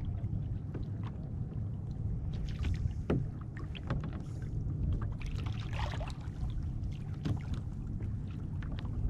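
Small waves lapping and splashing against a kayak's hull, a few slaps standing out, over a steady low rumble of wind on the microphone.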